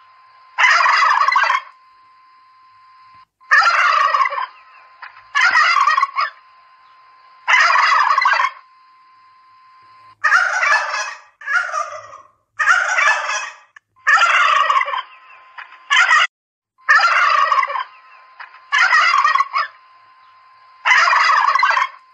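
Domestic turkeys gobbling over and over: about a dozen calls, each around a second long, coming every one to two seconds, a few of them quick and in pairs.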